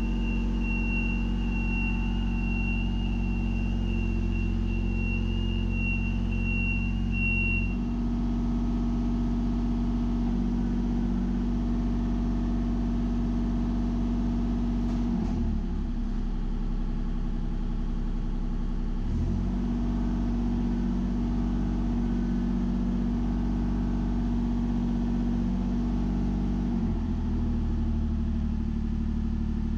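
Kubota KX033 mini excavator's 24-horsepower diesel engine running, its note shifting several times as the boom and arm are worked on the hydraulics. A steady high-pitched whine sounds over it for the first eight seconds or so, then stops.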